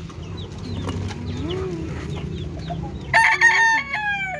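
Domestic chickens in a coop: hens clucking, then a rooster crowing loudly for about a second near the end.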